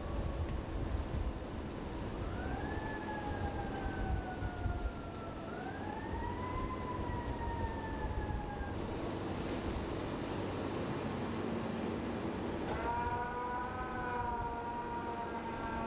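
Emergency vehicle siren wailing, rising and then slowly falling twice, over a steady low rumble. Near the end a held, horn-like sound of several pitches at once starts and keeps going.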